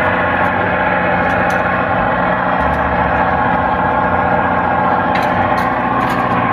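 A moored RoRo ferry's engines running at idle: a steady, even hum with low tones and a broad rushing noise above it, unchanging throughout.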